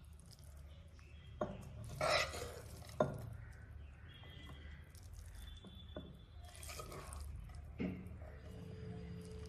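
Metal tongs knocking and scraping against a ceramic bowl and a non-stick kadai as cooked noodles are served: a few light clinks and two brief scrapes over a low steady hum.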